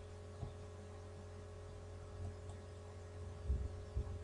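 Steady low electrical mains hum from the recording setup, with a few faint low thumps, the loudest two near the end.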